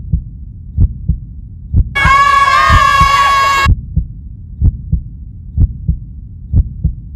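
Heartbeat sound effect: deep double thumps about once a second over a low rumbling drone. A loud, bright sustained sound with several held tones cuts in at about two seconds and stops a second and a half later.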